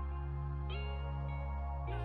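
Background music: held electronic chords over a deep bass note, with a new note coming in less than a second in.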